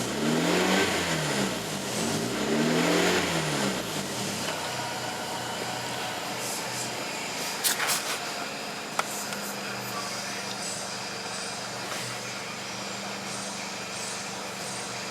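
1999 Honda Civic engine revved twice, the pitch rising and falling back each time, then settling into a steady idle. The throttle blips are a check on how the MAP sensor readings respond. A couple of short clicks come about halfway through.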